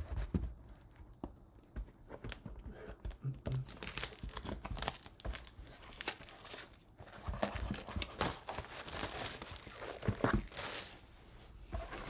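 Clear plastic wrapping crinkling and tearing as it is pulled off a cardboard card box by hand, with irregular rustles and light clicks.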